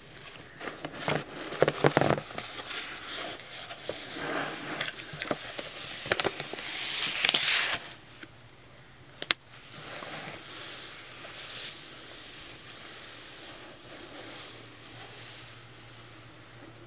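Paperback book handled close to the microphone: fingers tapping and sliding on the glossy cover, then the pages flipped and opened in a loud rustle that peaks about seven seconds in. A sharp tap follows, then soft paper rustling as fingertips brush the open pages.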